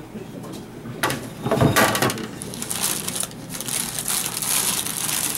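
Parchment paper crinkling and rustling as it is handled on a plate, starting about a second in with a louder crunch, then a continuous fine crackle.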